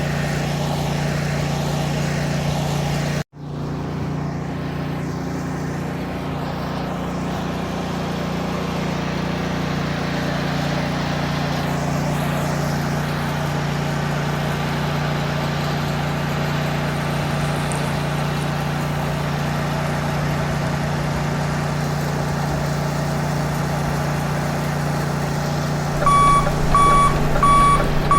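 Toy construction vehicle running with a steady mechanical hum, which cuts out for an instant about three seconds in. Near the end, a rapid series of electronic reversing-style beeps starts, about two or three a second.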